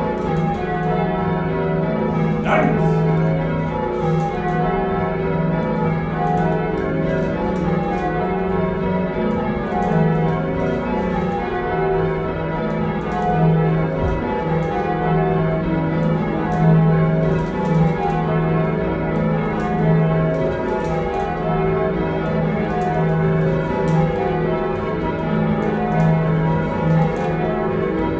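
A heavy ring of six church bells, cast by John Taylor & Co in 1925 with a tenor in E-flat of about 19¾ hundredweight, rung full-circle in changes. The strokes follow one another in a steady, unbroken rhythm, heard from the ringing chamber beneath the bells.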